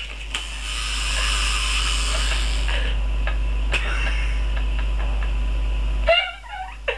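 A steady low hum with a light hiss, and a few scattered clicks and knocks as a small figurine is handled on a hardcover book. The hum drops out about six seconds in, at a sharper knock.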